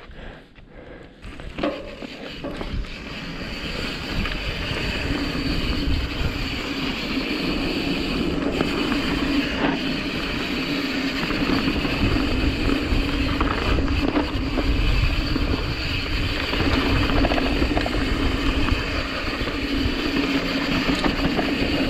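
Mountain bike riding downhill on a dirt trail: tyres rolling over the dirt and wind buffeting the action-camera microphone, growing louder over the first few seconds as the bike picks up speed, then steady.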